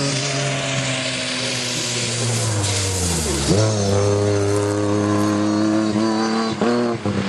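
Lancia Stratos HF's Ferrari-built V6 engine running hard. The revs ease down for about three seconds, drop and leap back up about three and a half seconds in, then hold steady, with a couple of brief breaks near the end. Tyres throw up spray from the wet track with a hiss.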